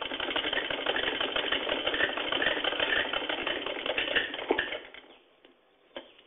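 Hand-driven sewing machine running, its needle mechanism clattering rapidly and evenly as it stitches a fabric strip. It stops about five seconds in, and a few separate clicks follow near the end.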